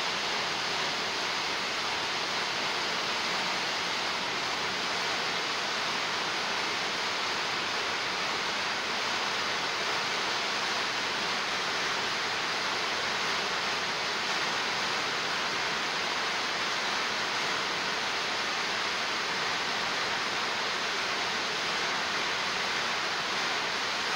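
Waterfall on Lynn Creek pouring into a plunge pool: a steady, even rush of falling water.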